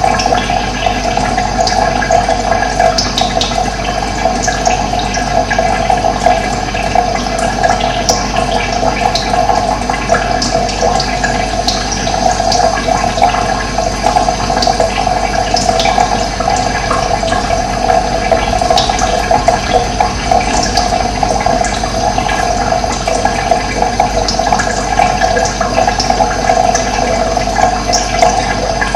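Running water, a steady loud rushing, with short high bird chirps scattered through it.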